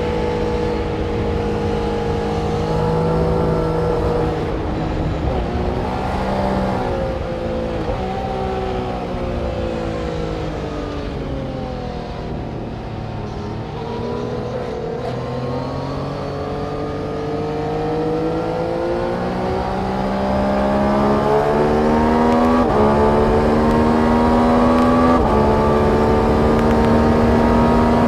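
Yamaha MT-09 three-cylinder motorcycle engine running under riding load. Its note falls away through the middle, then climbs steadily as it accelerates, getting louder, with a couple of sudden jumps in pitch late on.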